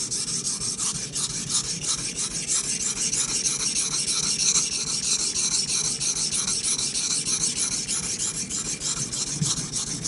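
A steel knife blade being ground back and forth on a wet Chosera 400-grit waterstone in quick, even strokes, a rasping scrape with each pass. This is coarse grinding to remove small chips from the edge.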